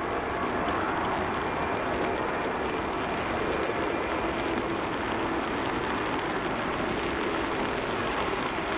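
Jet airliners' turbofan engines running steadily at taxi power: a continuous rumble and hiss with a faint whine, unchanging throughout.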